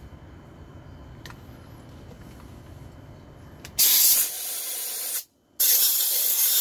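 Two bursts of compressed air hissing from a blow-gun nozzle aimed into a chainsaw's engine. Each lasts about a second and a half, and they start about four seconds in. Before them there is only a faint low hum.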